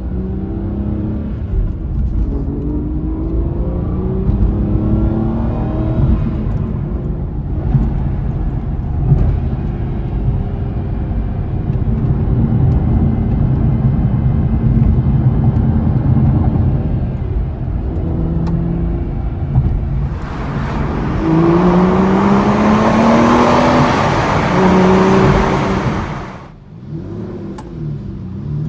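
Aston Martin 6-litre V12 engine running and revving, its pitch climbing several times. The loudest climb comes about three-quarters of the way through and cuts off abruptly, and the pitch rises again near the end.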